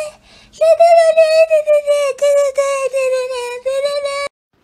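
A high-pitched singing voice held on nearly one note, with short breaks, stops just after the start and resumes about half a second in, then cuts off abruptly near the end.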